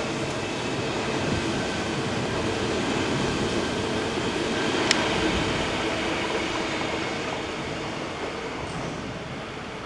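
Odakyu Kuya 31 inspection train running through a station without stopping: steady rail running noise with a hum in it, building to a peak about halfway and fading away. A single sharp click sounds near the middle.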